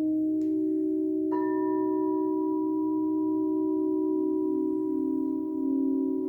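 Crystal singing bowls ringing in several overlapping, sustained tones, the lowest wavering in a slow beat. About a second in, another bowl is struck and adds a higher ringing tone.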